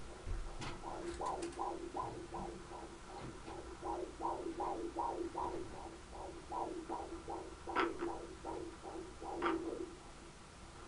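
Fetal heartbeat at 20 weeks heard through a handheld Doppler monitor: fast, even whooshing pulses a little over two a second over a steady hum, at a healthy rate in the 140s. Two louder crackles come through near the end.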